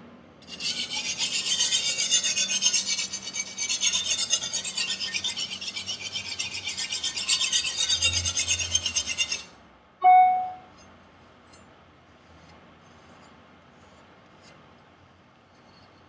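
Chinese chef knife's steel edge being scraped back and forth on a sharpening stone in quick, rhythmic strokes, reprofiling a rolled-over, micro-chipped factory edge. The strokes stop, and about a second later comes a single short ringing metallic clink.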